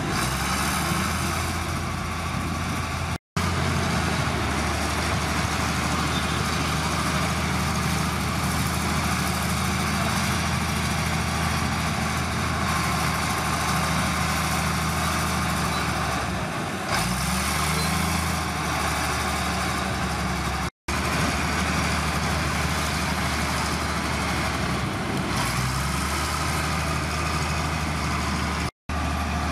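Heavy earthmoving machine's diesel engine running steadily at a low, even note, which dips and recovers briefly about halfway through. Three momentary dropouts to silence break it.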